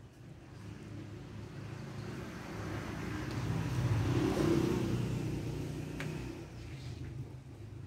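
A motor vehicle driving past, its engine sound swelling to a peak about four seconds in and then fading away.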